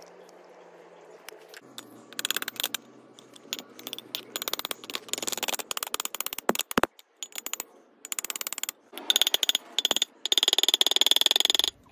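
Small hammer tapping metal rivets in quick runs of light, rapid blows, peening them over against a steel stake to fix a perforated copper strainer into a copper pot. The last runs near the end are the loudest and ring.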